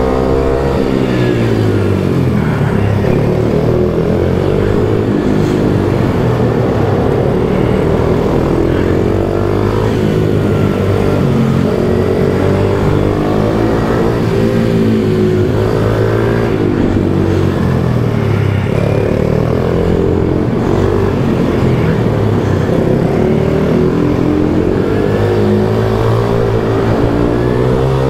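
Pit bike engine heard onboard while lapping a track, revving up on the straights and dropping back for the corners, over and over.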